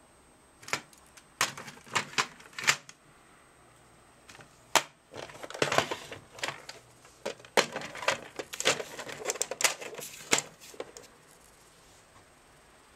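Irregular clicks and knocks of hard plastic parts being handled and set down on a table, a few at first, then a quick clatter of taps from about five to eleven seconds in.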